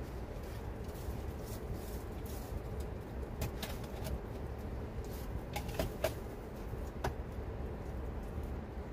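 Wood campfire crackling, with several sharp pops between about three and a half and seven seconds in, as the fire is tended and throws up sparks, over a steady low hum.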